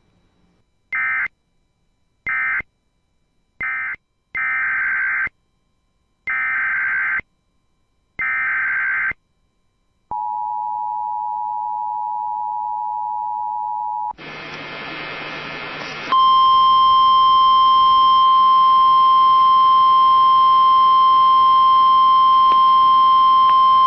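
Emergency Alert System SAME data bursts from NOAA Weather Radio: three short buzzing end-of-message bursts, then three longer header bursts a couple of seconds apart. Then a two-tone attention signal holds for about four seconds, and after a moment of radio hiss the loud, steady single-pitch weather radio warning alarm tone sounds, announcing a new warning.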